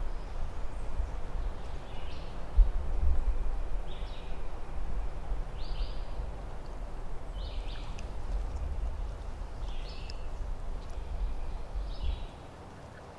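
A songbird repeats a short, high chirped phrase every couple of seconds over a low rumble of wind on the microphone; the wind rumble drops away near the end.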